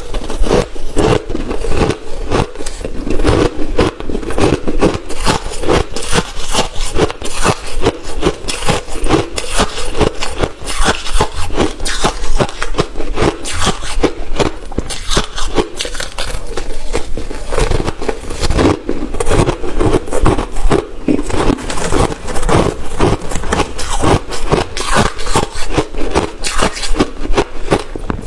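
Freezer frost and ice chunks being bitten and chewed: a dense, continuous run of crisp crunches, several a second.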